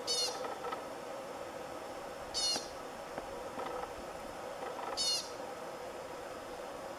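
American pika calling: three short, high-pitched squeaks about two and a half seconds apart.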